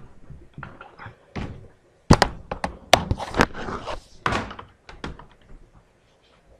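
Off-microphone handling noise: a few sharp knocks and thuds, the loudest about two and three seconds in, with rustling and shuffling between them, as objects are picked up and moved about.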